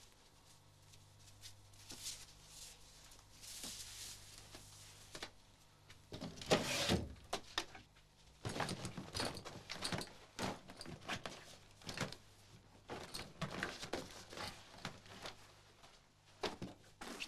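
Hurried handling sounds of someone dressing and rummaging: clothes rustle, a drawer of a chest of drawers is pulled open with a knock about six seconds in, and then come many quick irregular knocks and rustles as belongings are grabbed and moved.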